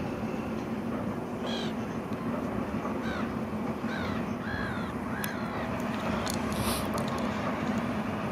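Steady low drone of the HST's Class 43 diesel power cars as the train passes at a distance, with a bird calling over it in a string of short arched calls for the first few seconds.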